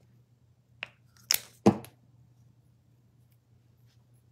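Three short sharp clicks and knocks of painting supplies being handled and set down on a table, the last the loudest, over a faint steady low hum.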